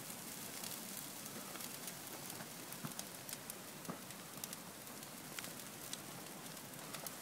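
Bonfire of dry branches burning, crackling with scattered sharp pops over a faint steady hiss.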